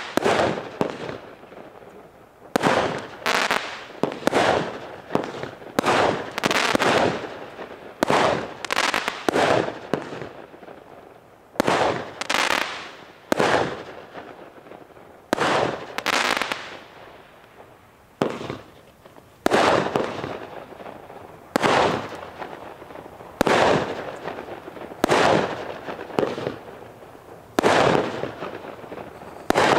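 Consumer fireworks from Vulcan's Soul Crushers assortment firing shot after shot, each breaking in the air with a sharp bang that echoes away. The bangs come about one to two a second, with a couple of short lulls.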